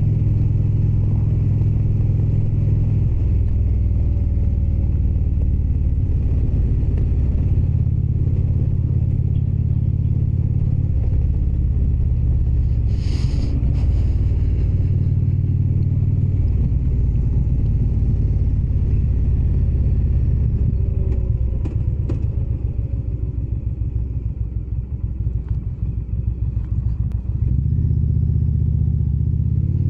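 Indian Springfield motorcycle's V-twin engine running on the road, its pitch stepping up and down several times with changes of speed and gear. It runs quieter and more uneven for several seconds in the second half, as when rolling off the throttle. A brief high-pitched sound comes a little before the middle.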